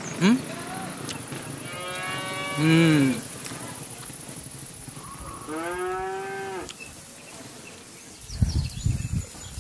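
A cow mooing twice, each moo over a second long, rising then falling in pitch, the second a few seconds after the first. Low thumps follow near the end.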